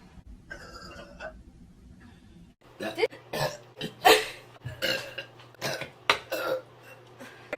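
A woman burping over and over: a quick run of short, loud burps about two a second, starting a little after two and a half seconds in, the loudest about four seconds in.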